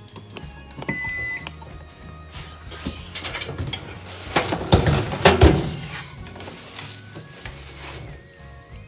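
A microwave oven's keypad beeps once, briefly, about a second in. Near the middle come a few loud knocks and rustling as something is handled. Background music plays throughout.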